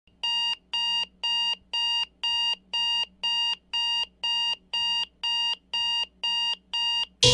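Electronic alarm clock beeping: thirteen steady, even beeps at about two a second, cut off near the end by the start of music.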